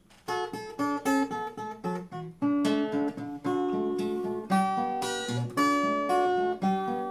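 Acoustic guitar played fingerstyle: an instrumental tune of plucked melody notes over bass notes, starting a moment after a brief silence.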